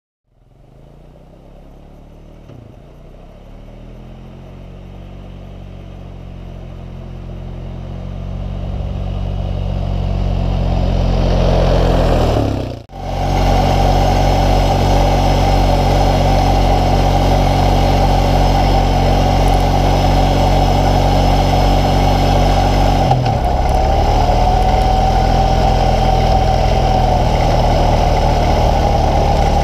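Engine of a plow vehicle running steadily under load while it pushes snow with its front blade. It fades in over the first dozen seconds, breaks off briefly about 13 seconds in, and dips in pitch for a moment about 23 seconds in.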